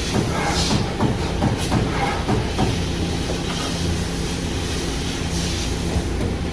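A 33-ton Amada Vipros 357 Queen CNC turret punch press running: a steady machine hum under a fast, uneven clatter of punching strokes, with a few short hisses.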